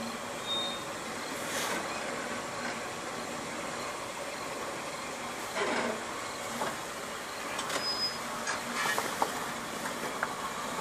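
Range Rover Classic 4WD crawling slowly over a rock ledge, its engine running low and steady. Tyres and running gear scrape and knock on the rock several times as the front wheel drops down the step, most sharply a little after halfway and again near the end.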